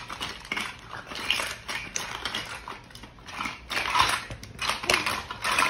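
Toy kitchen utensils and dishes clattering and knocking together in irregular clicks as a child rummages through them.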